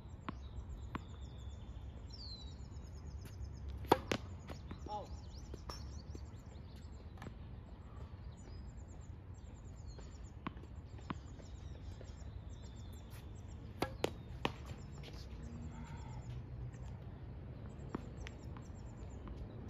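Tennis balls struck by rackets and bouncing on a hard court: scattered sharp pops, the loudest pair about four seconds in and another cluster around fourteen seconds. Birds chirp throughout over a steady low rumble.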